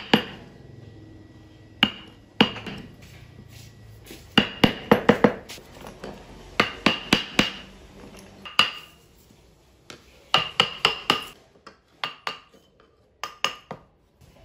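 Sharp taps with a short metallic ring, in quick runs of three to six with pauses between, from hand-chisel carving of the spokes of a small wooden toy-car wheel.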